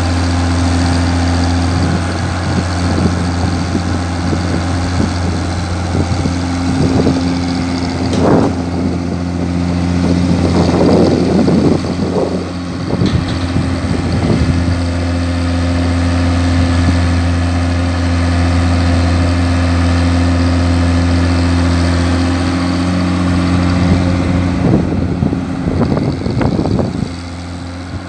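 Tata Hitachi EX-110 long-reach excavator's diesel engine running steadily, with short bursts of louder noise as the arm and bucket work, a little before a third of the way in and again near the end.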